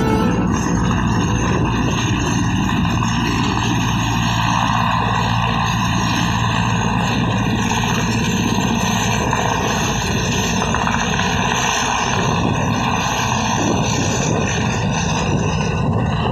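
Helicopter running: loud, steady engine and rotor noise with a constant, unchanging pitch.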